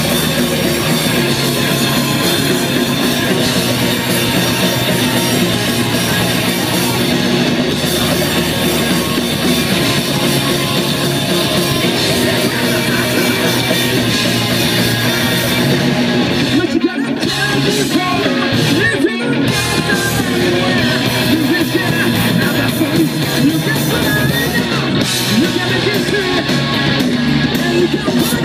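Live rock band playing loud: distorted electric guitars, drum kit and sung vocals, heard from among the audience. The band stops dead twice for a split second, a little past the middle.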